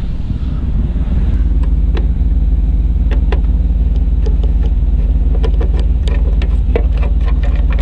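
1988 Chevy Suburban engine idling with a steady low rumble, with scattered light clicks and taps from about three seconds in as bulbs and light sockets are handled.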